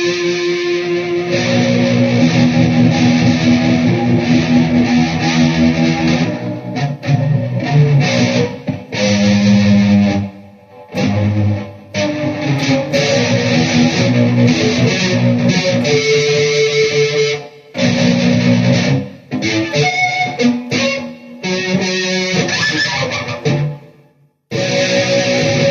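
Electric guitar played through a Peavey VYPYR X2 modelling amplifier, strummed chords and held notes with an effects-heavy tone, broken by a few brief stops.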